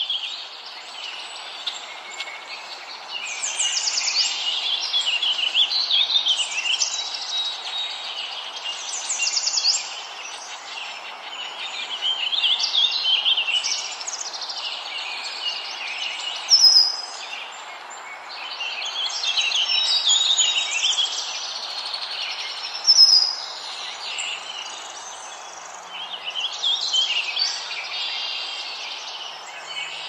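Birdsong: several songbirds singing over one another in a steady run of chirps, trills and whistled phrases, over a continuous rushing background noise. Two sharper, louder calls stand out, partway through and again a few seconds later.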